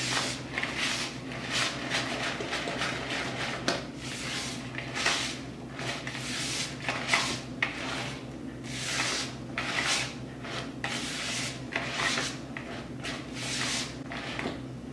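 Wooden spoon stirring thick chocolate chip cookie dough in a mixing bowl, scraping through the dough and against the bowl in repeated strokes, roughly two a second.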